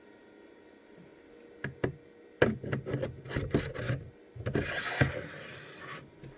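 Airsoft rifle parts being handled and fitted together: a couple of sharp clicks, then a run of knocks and clatter with a scraping rub in the middle as the barrel assembly is slid into place.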